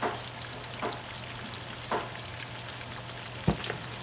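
Sliced onions sizzling in oil in a hot nonstick wok, with a few short crackles. A single louder knock comes about three and a half seconds in.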